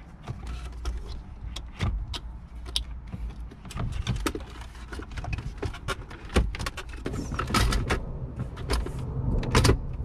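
Plastic dashboard trim and wiring connectors clicking and knocking as the center-console trim panel is handled and pressed back into place, with a dense run of knocks about seven seconds in and again near the end.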